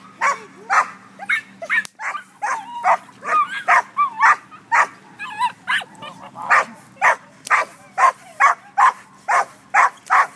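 Dog barking repeatedly, about two barks a second, with a few higher yelps in between: the aggressive barking of a leashed dog being agitated by a decoy with a stick in protection training.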